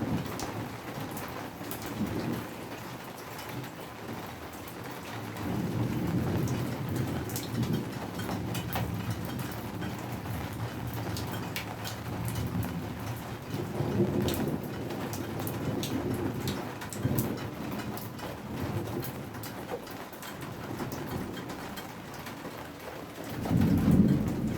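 Steady rain with many individual drops ticking, and distant thunder rumbling low several times: about five seconds in, again around fourteen seconds, and near the end.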